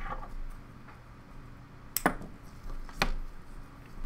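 Small metal hand tools, scissors and steel tweezers, being handled and set down. Two sharp clicks come about a second apart.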